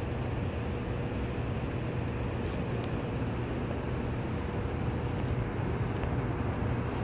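Steady low rumble of outdoor background noise, with a faint constant hum running through it.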